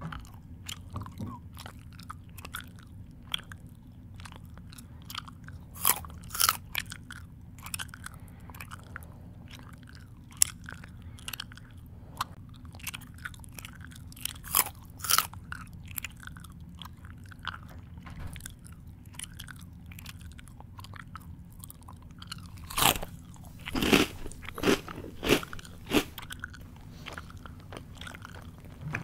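A person chewing and crunching food close to the microphone: a steady run of small crackling crunches, with louder clusters of sharp crunches about six seconds in, around fifteen seconds, and a burst of several between about 23 and 26 seconds.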